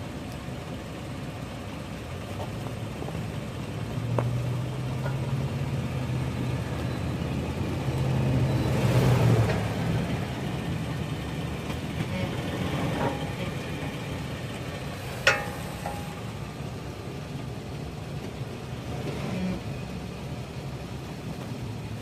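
Toyota 4Runner SUV running at low speed as it drives over a flashlight lying on the driveway; the engine hum swells from about four seconds in, peaks around nine seconds, then settles back. A brief sharp sound about fifteen seconds in.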